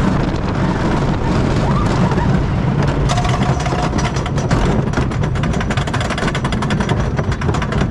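Twister wooden roller coaster train rumbling along its wooden track through a turn. About three seconds in it starts up the lift hill, and a rapid, even clatter of the anti-rollback dogs on the lift takes over.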